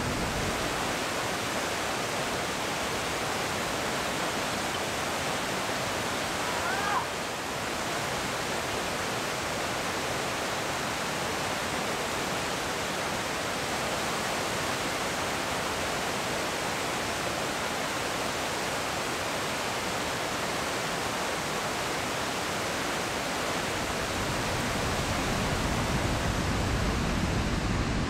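Steady, loud rush of a large waterfall pouring into its plunge pool.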